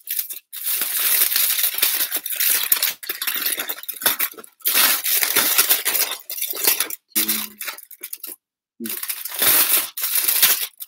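Aluminium foil crinkling and crackling as a folded foil packet is unfolded and smoothed out by hand, in a continuous run of rustles with a few short pauses.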